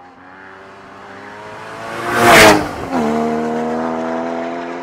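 Porsche Boxster Spyder's 3.8-litre flat-six accelerating toward and past: the engine note climbs as it approaches, peaks in a loud rush about two and a half seconds in, then drops in pitch and holds steady as the car pulls away, fading near the end.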